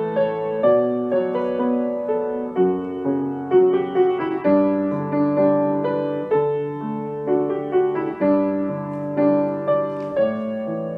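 Piano music: a slow melody of struck notes over held chords, each note ringing and fading.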